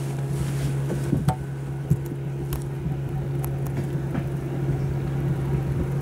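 Gladiator 9.9 outboard motor running at a steady speed, with scattered small knocks over the engine note; the sound starts and stops abruptly.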